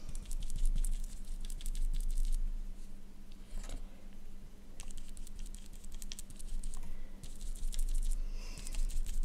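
A makeup applicator dabbing and rubbing close against the camera lens and microphone, in several bursts of fast, light tapping and scratching over a low handling rumble.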